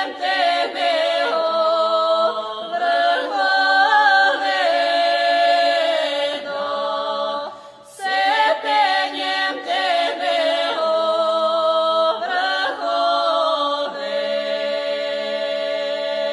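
Chant-like vocal music, sung with long held notes, with a brief break about halfway through.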